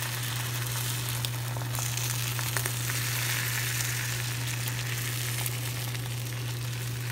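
Beaten eggs sizzling in a nonstick frying pan as a plastic slotted spatula pushes and folds them, with a few light taps and scrapes. A steady low hum runs underneath.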